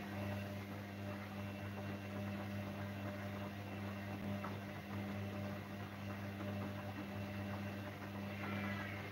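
Gorenje front-loading washing machine with an overloaded drum turning at speed, its motor and drum giving a steady low hum.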